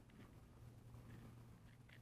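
Near silence: a faint steady low hum with a few faint soft ticks.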